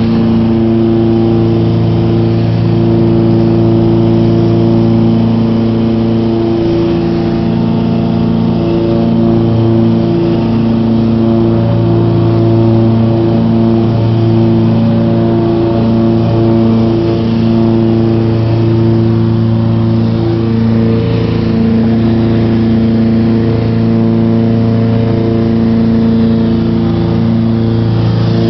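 Cessna 421's twin geared, turbocharged Continental GTSIO-520 piston engines and propellers at climb power after takeoff, heard inside the cabin: a loud, steady drone of several even tones with a slight wavering, over a rushing hiss.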